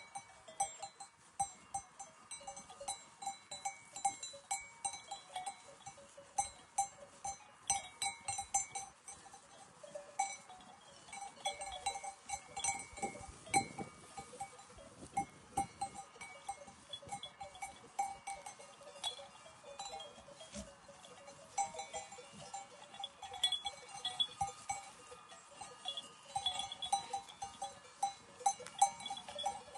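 Bells on a grazing flock of sheep clinking and jangling irregularly, many small strikes overlapping.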